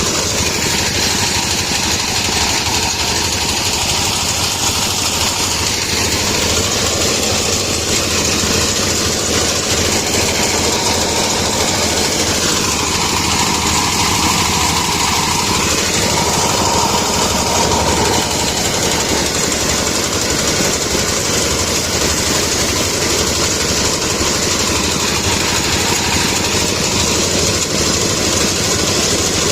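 Small engine running steadily and loudly, its note shifting slightly around the middle.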